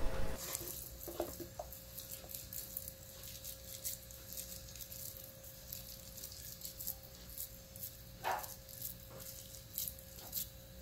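Ground-pork mixture frying in oil in a pan: a light, irregular crackle and spit of hot oil, over a faint steady hum.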